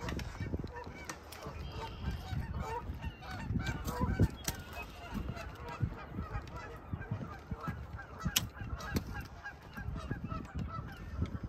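A flock of geese honking, many short calls overlapping and repeating throughout, with low muffled thumps underneath.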